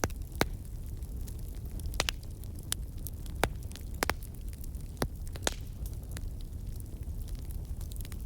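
Wood fire crackling: irregular sharp pops and snaps, about a dozen, over a steady low rumble.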